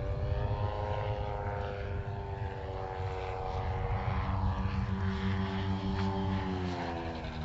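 Propeller-driven Watchkeeper drone flying overhead: a steady whine over a low engine rumble, its pitch sliding down near the end.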